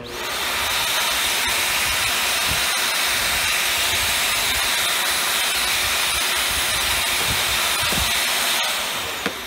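Hoover WindTunnel Air Pro upright vacuum motor switched on. It runs with a steady rushing hiss and begins to wind down near the end. The hose is blocked, which the owner takes for a plug in the hose, so no suction comes from it.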